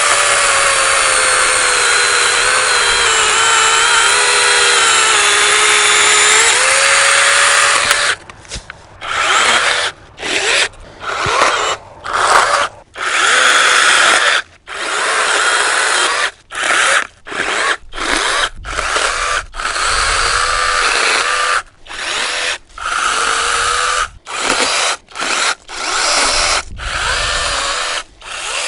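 Orblon 6-inch brushless mini chainsaw, running on a DeWalt 20V battery, cutting through a branch: a steady high whine for about eight seconds that drops in pitch as the chain loads up in the wood and rises again. After that it runs in many short bursts, on and off, for the rest of the time.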